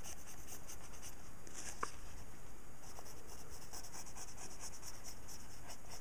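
Pencil scratching on paper in quick, short strokes while sketching lines, with one sharper tick about two seconds in.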